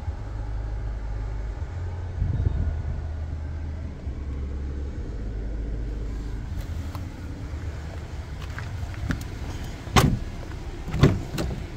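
Low steady hum with camera handling noise, then near the end two sharp clicks and knocks as the Jeep Gladiator's rear door handle is pulled and the door latch releases.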